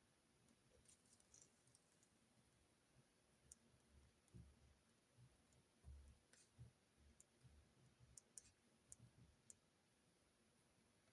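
Faint, scattered clicks and soft taps of handwriting and stationery at a desk while taking notes, with a few light thumps in the middle.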